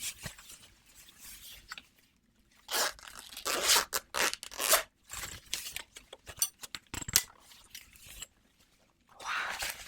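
Close-miked tearing and scraping sounds made with ASMR props: a ripping stroke about three seconds in, a cluster of louder rips and scrapes just after it, and a few sharp clicks around the seven-second mark.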